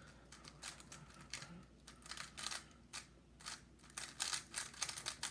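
A magnetic 3x3 speed cube, a WeiLong WR M, being turned quickly by hand: quick, uneven runs of plastic clacks and swishes, coming faster toward the end.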